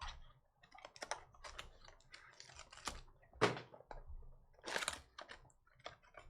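Trading-card box and packs being handled and opened by hand: an irregular run of crinkling and rustling of cardboard and foil wrappers with small clicks and taps, loudest about halfway through and again about a second later.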